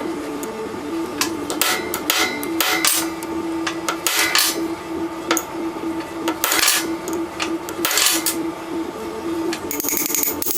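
Irregular sharp metal taps and knocks from hand tools striking a vintage steel Snap-on ratchet as it is taken apart, over a steady low hum. A steady high hiss starts near the end.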